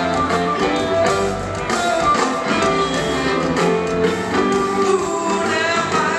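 Rock band playing live, with guitar over bass and drums, taped from the audience at a concert.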